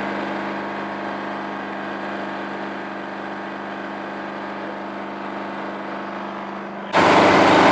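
An engine idling steadily, a low even hum. Near the end the sound jumps suddenly much louder, with a broad rushing noise over the hum.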